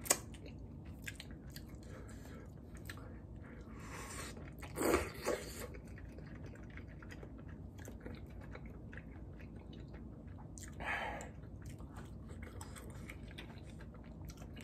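Close-miked chewing of braised chicken, with small wet mouth clicks and smacks throughout. A few brief louder noises stand out about five seconds in and again around eleven seconds.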